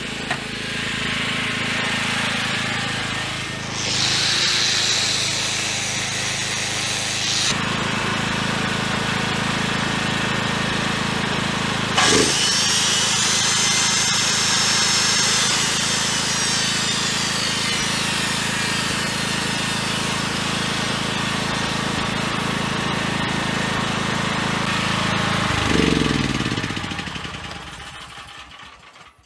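Inforce GL 8000 petrol generator's engine running steadily while power tools plugged into it are run: a tool's high whir for a few seconds, then a sharp knock and a whine that falls in pitch as a hand circular saw spins down. Near the end the engine's pitch drops and it runs down to silence as the generator is shut off.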